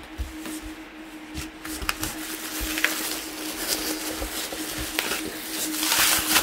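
Glass items and their packing being handled from a box: scattered small knocks and light rustling, with a louder rustle of packing near the end. A faint steady hum runs underneath.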